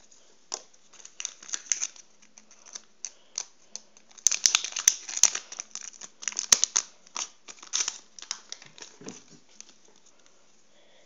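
Football sticker packet and stickers being handled: irregular paper crinkling and rustling, busiest in the middle and thinning out near the end.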